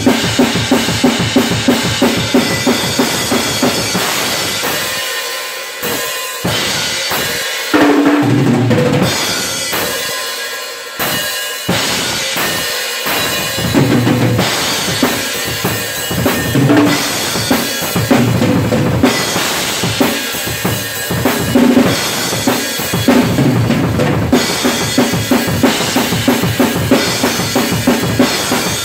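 Acoustic drum kit with Paiste RUDE and Zildjian cymbals played solo in a fast death-metal style: dense, rapid bass-drum and snare strokes under crashing cymbals. Twice near the middle the bass drum drops out to spaced single hits, and ringing tom strokes come through in places.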